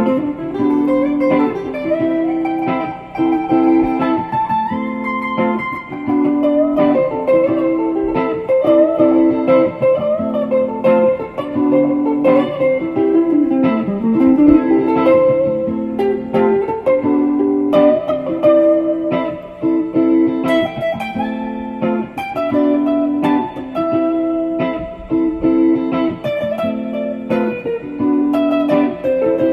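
Background music: a melody of plucked notes over a repeating lower figure.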